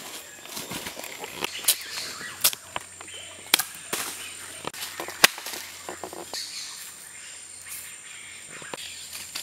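Rainforest ambience: a steady high insect whine with scattered sharp snaps and cracks, the loudest about three and a half and five seconds in.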